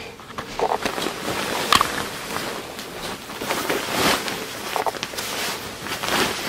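Fabric rustling in uneven swells as a down comforter is pushed and pulled into a duvet cover.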